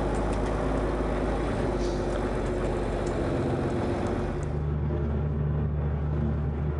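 John Deere tractor engine running steadily under way, with light rattles over it; about two-thirds of the way through its note changes and settles lower.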